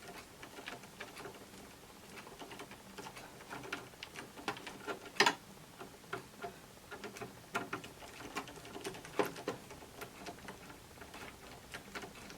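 Irregular small clicks and light taps of a Phillips screwdriver against the metal screw and upper knife of a Brother 1034D serger as the knife is unscrewed and taken off, with one sharper click about five seconds in.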